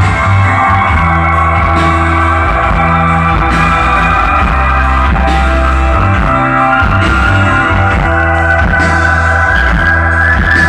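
Instrumental break of a rock song played by a band: electric guitar over steady bass notes and drums, with no singing. A held guitar tone slowly rises in pitch over the passage.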